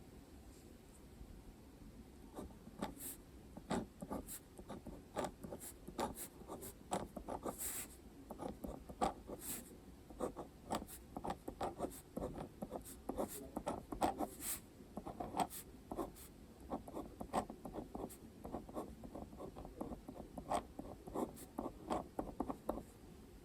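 Handwriting on paper: quick, close-up scratching strokes and small ticks of the writing tip. It starts about two seconds in and stops just before the end.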